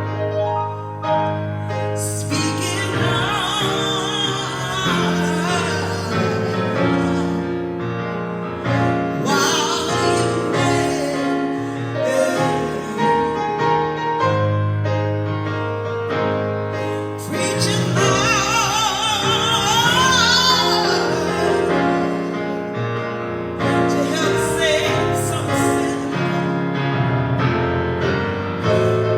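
Gospel song with a woman singing with vibrato over piano or keyboard and a steady bass line.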